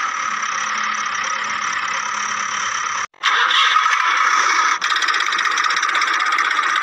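Steady, engine-like mechanical whirring with the toy tractor and backhoe loader. It breaks off sharply for an instant about three seconds in and resumes slightly louder.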